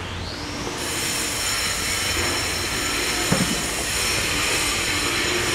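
Steady, loud hissing machine noise that swells in during the first second and holds, with a faint thin high whine above it; a short knock comes a little past halfway.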